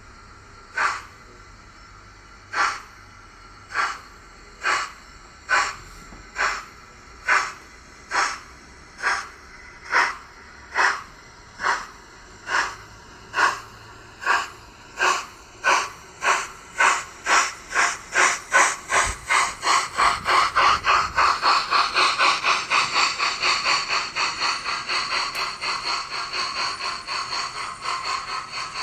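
Sound-fitted Dapol OO gauge A4 model steam locomotive playing steam exhaust chuffs through its onboard speaker as it pulls away with a train. The beats start slow and widely spaced, then quicken steadily until they run together into a rapid, even beat about two-thirds of the way through.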